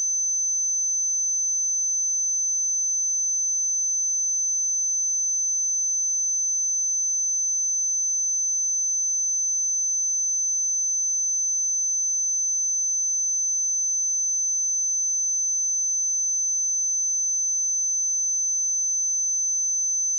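Steady pure sine-wave test tone at 6131 Hz, a single unchanging high-pitched whistle.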